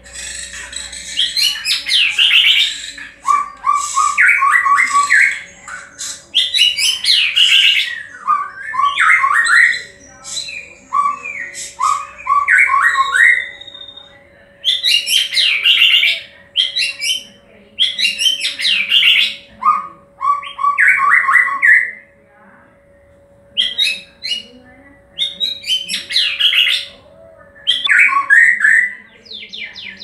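A caged white-rumped shama singing loudly in a run of varied whistled phrases, each a second or two long, with short pauses between them and a longer pause about two thirds of the way through.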